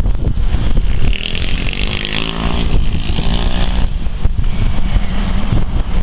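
Strong wind buffeting the camera microphone with a heavy rumble and repeated knocks. An engine's pitched drone rises and falls over it from about one to four seconds in.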